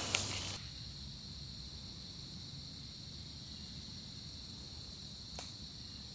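Insects trilling steadily, one continuous high tone, with a short click at the start and a faint click near the end.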